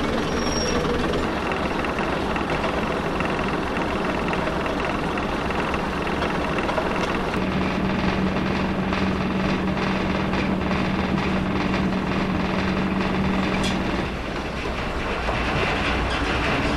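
Heritage diesel multiple unit running along the line: steady rumble of its underfloor diesel engine and wheels on the rails. A steady engine hum comes in about halfway through and eases off a few seconds before the end.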